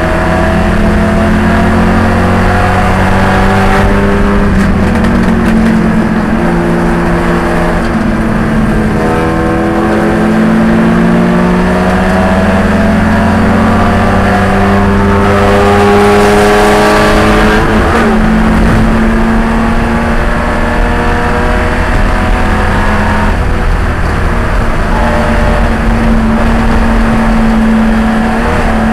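Spec E30 BMW race car's engine at racing speed, heard from inside the cockpit, its pitch climbing under acceleration and dropping several times for shifts and corners.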